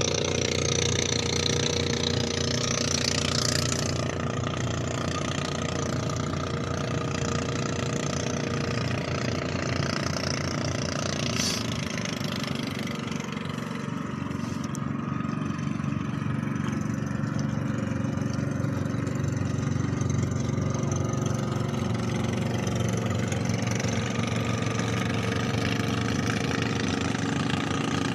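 Engine of a motorized outrigger boat running steadily at an even speed.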